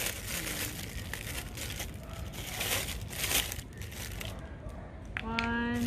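Crinkling and rustling of plastic as sand molds are handled, in irregular bursts.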